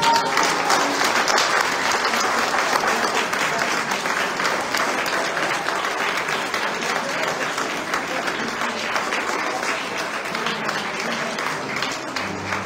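Audience applauding, with dense, steady clapping that eases off a little toward the end.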